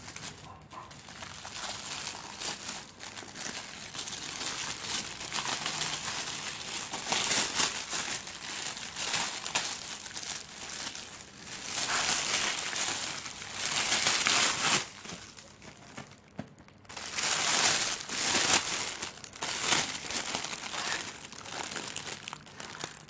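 Thin plastic packaging bag crinkling and rustling as it is handled and cut open, in uneven bursts, loudest a little past the middle.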